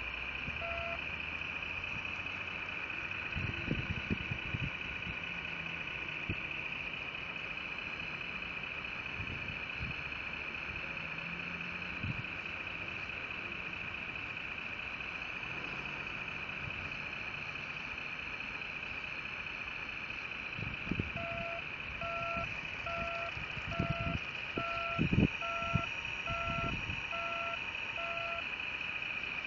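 Radio-controlled scale model CAT 963B track loader working, with a steady high-pitched whine from its drive and hydraulics throughout. About twenty seconds in, a reversing alarm beeps about once a second, nine times, among a few dull thumps.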